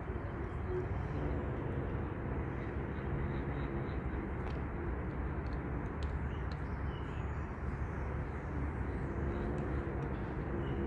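Steady low outdoor background rumble, with a faint droning tone that comes in near the start and again near the end.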